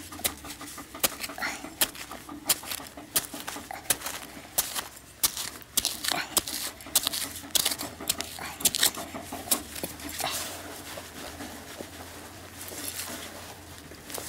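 Small metal hand trowel scraping and digging into loose, crumbly soil: a run of short, sharp scrapes about once or twice a second that thins out after about ten seconds.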